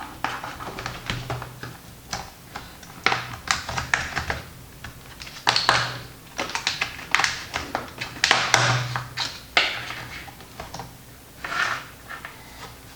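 A plastic pry tool or card worked around the edge of a laptop's bottom cover, with irregular clicks and snaps as the cover's clips let go, and short scrapes in between.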